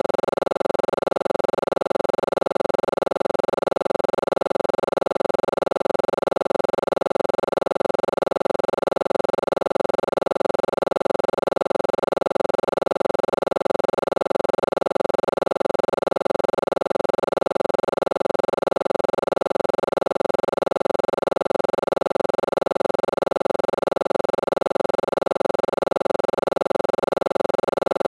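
A steady, unchanging drone of several held tones, strongest in the middle register.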